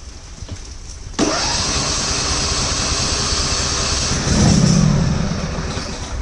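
Electric starter cranking a 24 hp Briggs & Stratton lawn tractor engine for about four and a half seconds, starting about a second in and briefly louder near the end, without it catching: the carburetor has just been refitted and its fuel bowl is still empty.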